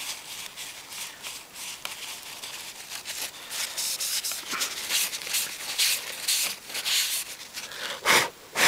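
Dry tissue rubbed briskly over the glass tops of vacuum tubes to buff them. It makes a scratchy, irregular swishing of quick strokes that gets louder after about three seconds.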